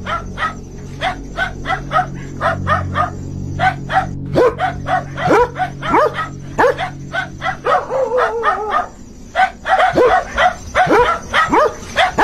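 Dogs barking rapidly and without pause, with sharp falling yelps from about four seconds in and a wavering whine around eight seconds. A low hum runs underneath for the first eight seconds or so.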